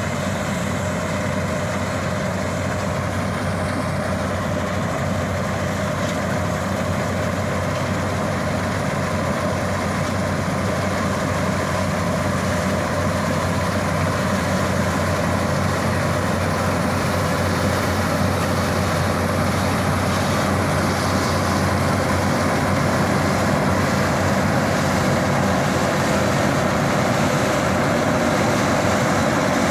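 Bizon Z056 combine harvester's SW 400 six-cylinder diesel engine running steadily under load as the combine cuts and threshes wheat, with the machinery's clatter mixed in. It grows a little louder as the combine comes closer.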